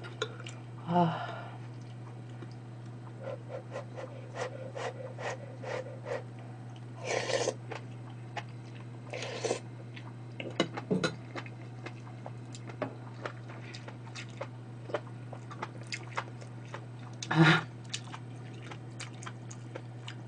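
A person eating close to the microphone: chewing, spoon clicks against a pot, and a few short slurps of perilla mushroom soup. A steady low electrical hum sits under it.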